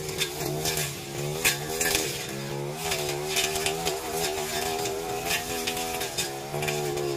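Backpack brush cutter engine running under load, its pitch wavering up and down as the cutting head bites into weeds and brush, with repeated short sharp swishes of stems being struck and cut.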